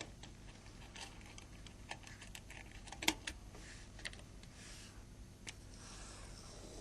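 Faint, scattered light clicks and taps of a small prying tool and plastic phone parts being handled, with one sharper click about three seconds in.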